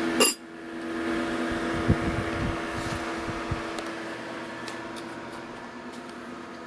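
Small electric fan of a cylinder-barrel cooling test jig running with a steady hum, slowly getting fainter. A sharp clunk comes just after the start, and a few low thumps about two to three seconds in.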